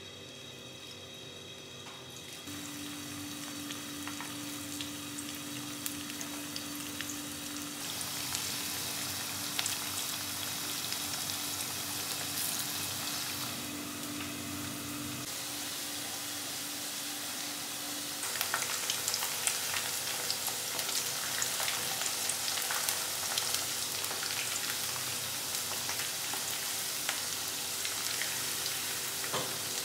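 Onion fritters (pakoras) deep-frying in hot oil in a non-stick wok: a steady sizzle that grows louder a few seconds in, turning into dense crackling with many small pops in the second half.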